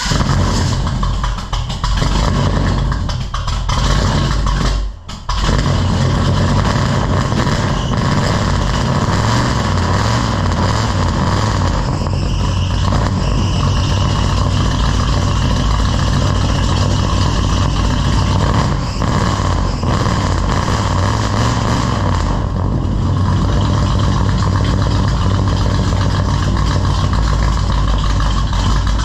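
The 1983 GMC K2500's carbureted engine just fired up, faltering twice in the first five seconds, then running steadily at a fast idle through its newly finished exhaust.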